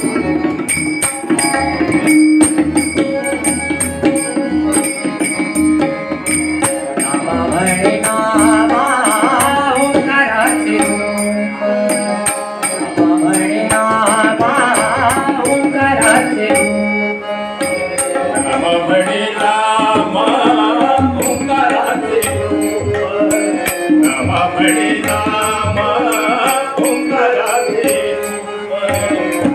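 Devotional bhajan: men singing with a harmonium's held chords, tabla, and small hand cymbals clicking a steady beat.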